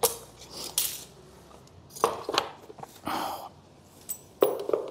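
A metal butane gas lamp and its canister adapter being handled and set aside on a table: a string of irregular light clicks and knocks with a brief rustle in the middle.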